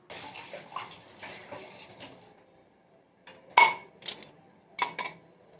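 Steel kitchen utensils and dishes clattering while being washed up at the sink: a soft hiss for about two seconds, then a run of sharp metallic clinks, about six, in the second half.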